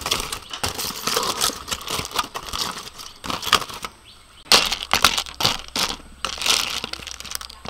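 Aluminium foil crinkling and cockle shells clattering against each other as grilled cockles in a foil parcel are handled and stirred with a utensil. It is a dense run of clicks and rustles, with a few louder scrapes in the second half.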